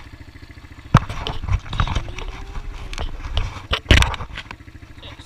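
Small ATV engine idling with a steady, quick putter. From about a second in, a few seconds of loud knocks and thumps close to the microphone as the camera is moved, with sharp bangs at the start and near the end of that stretch.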